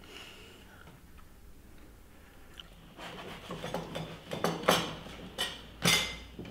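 Breakfast-table sounds: faint chewing, then from about three seconds in a run of sharp clinks and knocks of cups, plates and cutlery.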